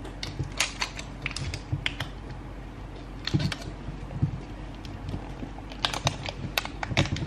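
Plastic toy ball being handled and peeled open: scattered clicks, taps and crinkles of fingers and a peel-off wrapper strip on the hard plastic shell, bunched in the first two seconds and again near the end, quieter in between.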